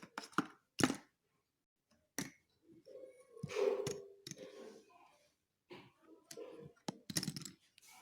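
Slate pencils clicking and cracking: a string of irregular sharp clicks, with a longer crunchy stretch about three and a half seconds in.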